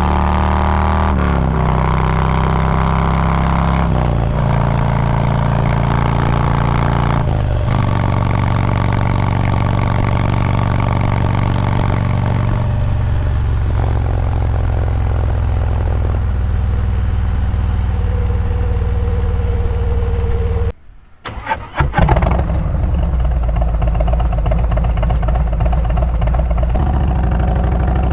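Harley-Davidson Milwaukee-Eight 114 V-twin running loud through aftermarket slip-on mufflers (Stage 2 with the SE8-447 cam), its note stepping in pitch several times. The sound cuts out briefly about two-thirds of the way in, then returns just as loud.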